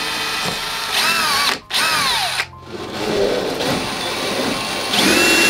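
Small electric drill running in several short bursts, its motor whine rising as it speeds up and falling as it slows, with a brief break about a second and a half in and another near two and a half seconds.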